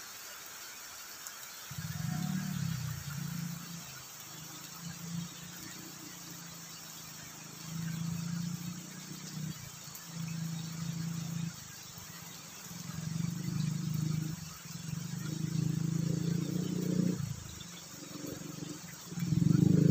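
Motorcycle engine approaching, its note swelling and dropping back in uneven surges as the throttle changes, growing louder and loudest near the end as it comes close.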